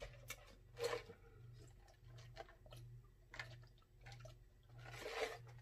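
A person gulping and swallowing a drink from a glass mug: a series of soft, separate gulps, faint, over a low hum.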